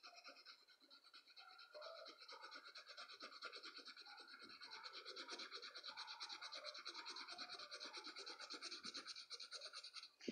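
Pencil shading on graph paper: a fast, steady back-and-forth scratching of the lead, growing a little louder about two seconds in. A single sharp knock at the very end.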